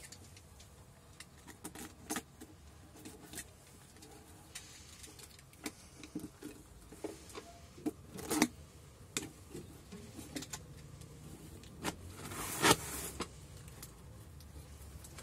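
Cardboard box handled by gloved hands: scattered taps and rustles, a utility knife slicing through the clear tape seal, and a short, louder scrape of cardboard about three-quarters of the way through.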